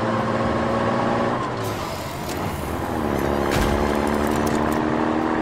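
Heavy machine engine sound effect for a toy excavator, running steadily, its note dropping and settling lower about three seconds in. A couple of sharp clanks come in the middle.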